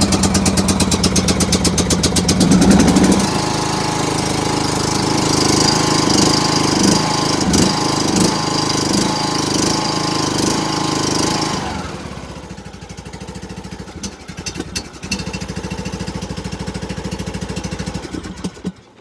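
Lawnmower engine running from a cold start, loud and fast at first. About twelve seconds in it settles to a quieter, steady idle, then it stops near the end.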